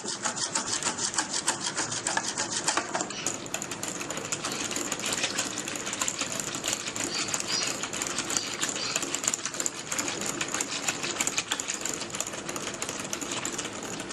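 Yogurt-and-milk lassi being whisked by hand in a container: rapid, even strokes, several a second, kept up without a break.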